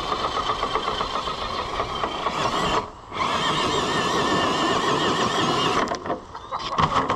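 RC scale crawler truck's electric motor and drivetrain whining as it claws up a steep loose-dirt slope, the whine wavering in pitch with the throttle. It cuts out briefly about three seconds in and again near the end.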